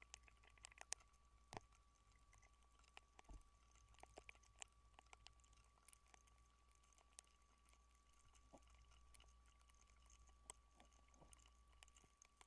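Near silence: faint scattered clicks and crackles over a low hum and a thin, steady high tone.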